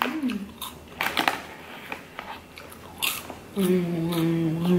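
Someone crunching and chewing sweet banana popcorn in short crisp bites, with the plastic snack bag rustling as a hand reaches into it. About three and a half seconds in, the eater starts a long, steady hum.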